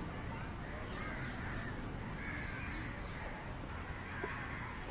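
Crows cawing, several calls in a few seconds, over steady background noise.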